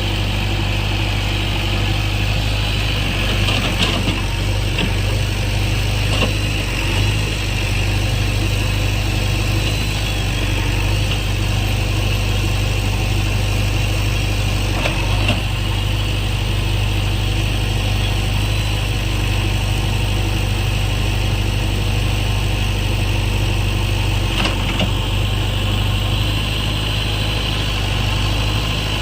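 JCB backhoe loader's diesel engine running steadily at a low, even speed, with a few short knocks now and then.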